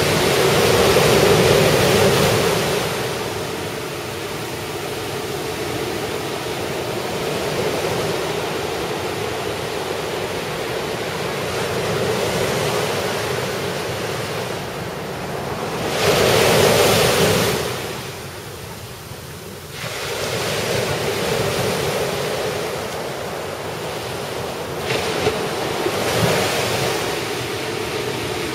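Ocean surf from typhoon swell breaking on a beach: a continuous wash of waves that swells and fades, with louder crashes at the start and about sixteen seconds in.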